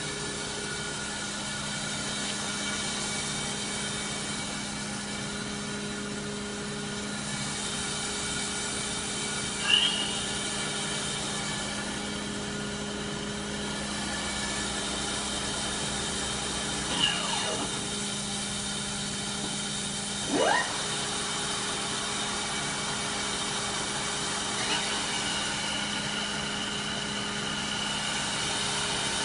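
Kitamura Mycenter 3X CNC vertical machining center running under power: a steady machine hum. Four short whines sweep up or down in pitch, about ten, seventeen, twenty and twenty-five seconds in.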